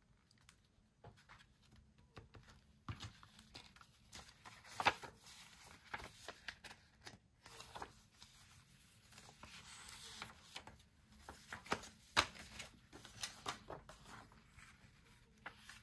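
Paper tags and card pieces being handled and shuffled: soft rustles and light taps with a few sharper clicks, the loudest about five and twelve seconds in.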